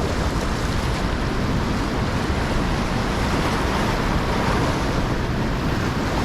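Steady rushing of fast river water, mixed with wind buffeting the microphone.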